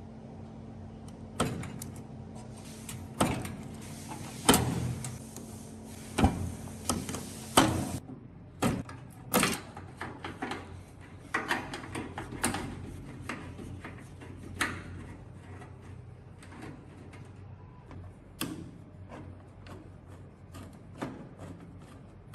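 Irregular knocks, clicks and scrapes of metal parts and tools being handled while taking apart an old microwave. A steady hum runs under them and stops about eight seconds in.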